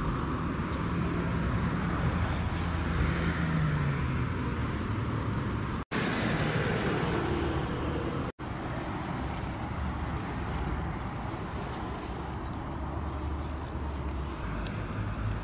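Steady low outdoor background rumble, of the kind distant road traffic makes, cutting out to silence for an instant twice in the middle.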